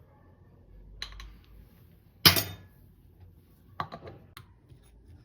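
A few sharp clicks and knocks of objects being handled, with one loud short clatter a little over two seconds in and a quick cluster of clicks near the end.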